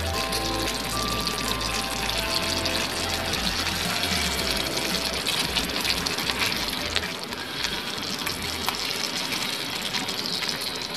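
Thick cornstarch gravy of pork, baby corn and potato simmering in a frying pan, a steady bubbling hiss, with a few light scrapes and taps of the spatula stirring in the second half. Background music with a bass line plays over the first few seconds and fades out.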